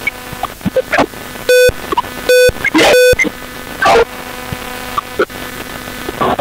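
Three short, loud blasts of a horn at one pitch, a little under a second apart.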